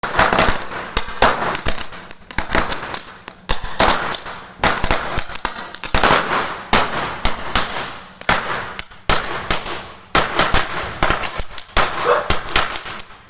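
A thousand-cracker string of firecrackers (a 'digital' lar) going off: rapid sharp cracks fired in dense clusters about once a second, without a break.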